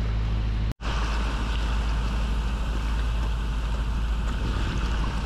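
Small passenger ferry boat under way: its engine running with a steady low hum under the rush of water along the hull and in the wake. The sound drops out for an instant under a second in.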